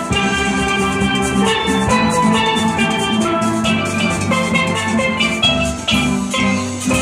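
Steel band playing a tune on steel pans, many short ringing notes over a steady drum beat.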